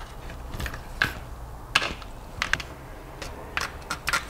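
Irregular small clicks and taps of a soldering iron, a freed metal standoff insert and the plastic prop guard being handled and set down on a wooden cutting board.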